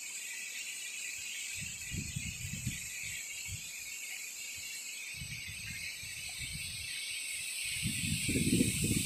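Strong gusty wind: a steady high rushing hiss, with low rumbles of gusts buffeting the microphone a few times, the strongest near the end.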